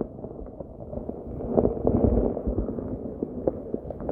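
Muffled sloshing and churning of stream water, with scattered small clicks and knocks.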